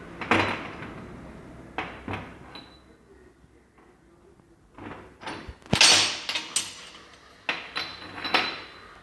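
Metal parts of a hydraulic power steering box being knocked and handled during repair: sharp knocks and clinks in several clusters, the loudest about six seconds in, some with a brief metallic ring.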